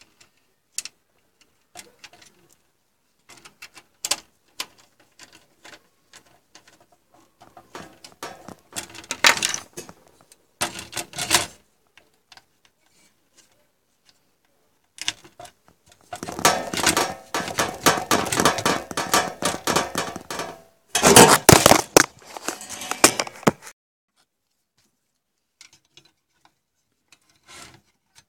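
Clicks, knocks and scraping of a CPU heatsink-fan and its plastic retention bracket being handled on a motherboard. Scattered light clicks at first, then louder rattling, scraping bursts, the longest from about 16 to 23 seconds in, before it goes quiet again.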